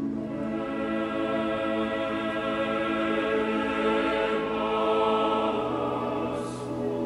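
Choral music: a choir singing slow, long-held chords, with the lower part moving to a new note about six seconds in.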